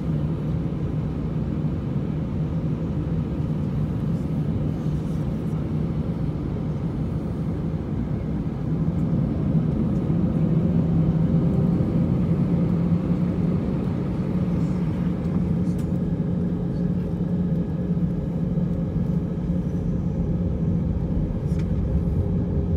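Airbus A319 jet engines running at taxi power, heard from inside the cabin: a steady rumble with a low hum, growing louder about nine seconds in.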